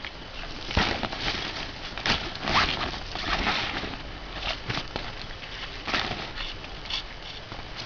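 A kitten pawing and biting at a string, with irregular rustling and scratching and a few small clicks as it scrabbles over the mat and cloth.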